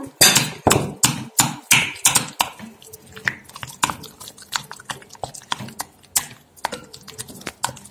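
A spoon stirring crushed chickpeas into a thick yogurt and tahini mixture in a glass bowl, knocking and scraping against the glass in quick, irregular clicks.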